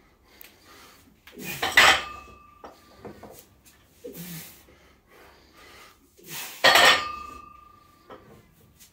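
A loaded barbell of about 130 kg set down on the floor twice between deadlift reps, about five seconds apart. Each touchdown makes the iron plates clank and ring briefly.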